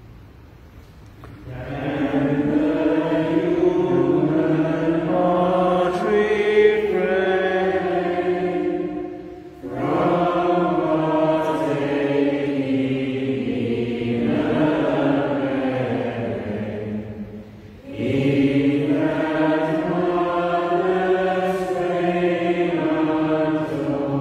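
Voices singing a slow hymn verse, in three long phrases of held notes with short breaks between them, starting about a second and a half in.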